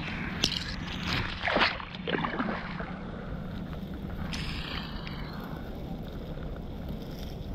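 Dry grass rustling and brushing close to the microphone in a few quick bursts over the first couple of seconds, over a steady low rumble.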